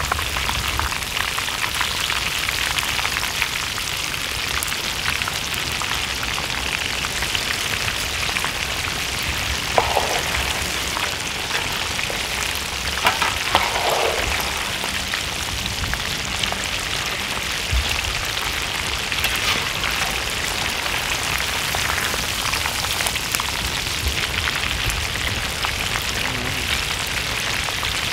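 Chicken legs frying in hot oil: a steady sizzle with fine crackling.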